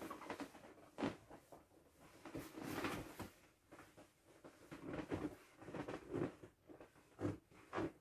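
Inflatable vinyl parrot swim ring being handled and shifted by fursuit paws: uneven vinyl rubbing and handling noise, with a sharp knock about a second in and two more near the end.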